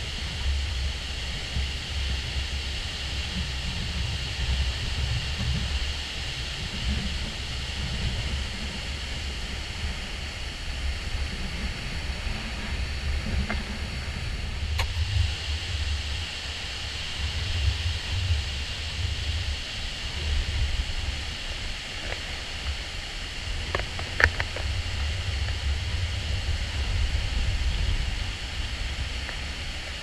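The roar of Dettifoss, a very large glacial-river waterfall: continuous rushing noise with a low rumble that rises and falls. One brief click about two-thirds of the way through.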